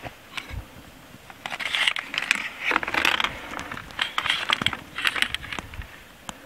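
Footsteps of a hiker crunching on a stony, gritty trail, with sharp clicks of boots and loose stones underfoot. There are about four steps, roughly one a second, starting about a second and a half in.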